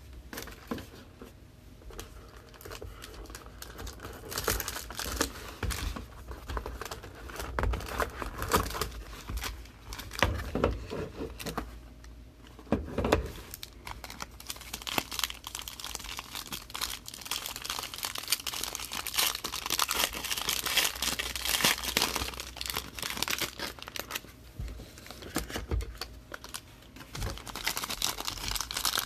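Plastic wrapping on a sealed box of trading cards being torn open and crinkled by hand, an irregular run of crackling with a few louder knocks.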